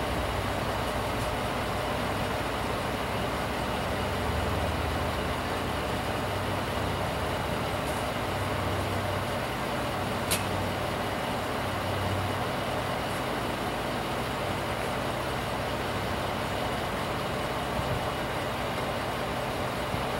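A vehicle engine idling steadily, with one sharp click about halfway through.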